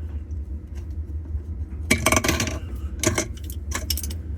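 Small flathead screwdrivers clinking and rattling against each other and the plastic filter cap as it is pried up off the drum hub of an LG top-loading washer, in three short bursts of clatter over a steady low hum.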